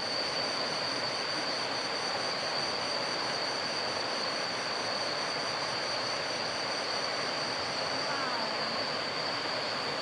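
Insects shrilling in one steady high tone over the even rushing hiss of river water.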